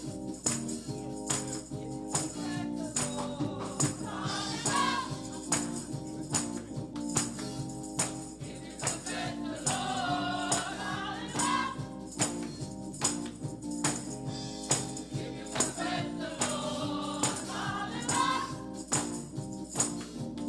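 Gospel choir singing in phrases over held instrumental chords, with sharp percussion hits keeping a steady beat about twice a second.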